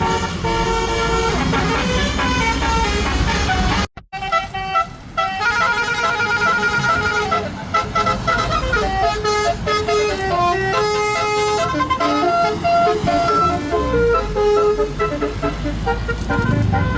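Tour bus telolet horn, a multi-tone air horn, playing a tune in short changing notes, with a brief dropout about four seconds in. The bus engine runs low underneath.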